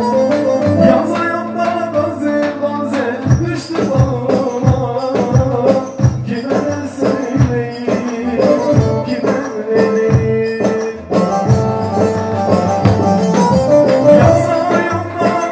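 Turkish folk music in the uzun hava style: a hand-held frame drum struck in a steady rhythm under a pitched melody line.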